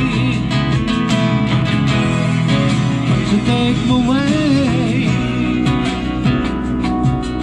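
Live acoustic guitar strummed through a PA, with a man singing a few phrases, about four seconds in.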